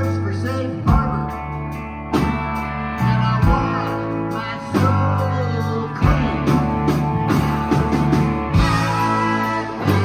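A live rock band plays electric guitars over bass and drums, with a sung lead vocal.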